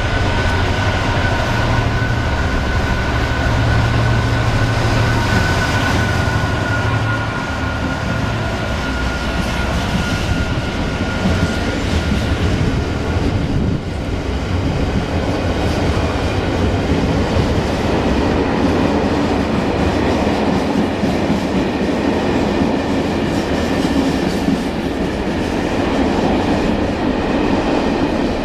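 Freight train passing through a station: a steady rumble of wagons rolling over the rails with a light clatter of wheels on rail joints. A thin steady whine fades out around the middle.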